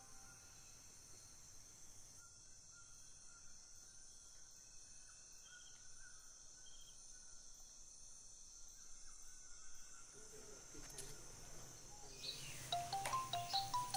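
Faint, steady high-pitched chirring of insects. Near the end, a quick run of short, chiming notes starts up.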